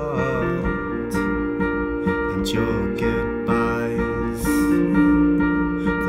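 A slow song played on an electric keyboard as long held chords, with a man singing a few drawn-out phrases over it.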